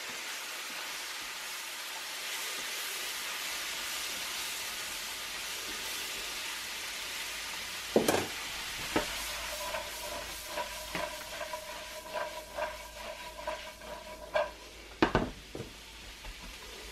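Sliced mushrooms and diced onions sizzling steadily as they sauté in butter in a nonstick skillet. About halfway through, a silicone spatula starts stirring them, with quick scraping strokes against the pan about twice a second and a couple of sharper knocks.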